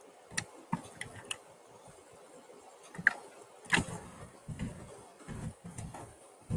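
Irregular light clicks and soft knocks, about ten of them, with the sharpest clicks about three seconds in, over a faint steady hiss.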